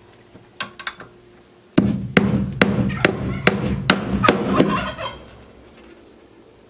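Hammer driving joist hanger nails through a metal hurricane strap into a wooden rafter: a few light clicks, then a fast run of about eight blows, each ringing on into the next.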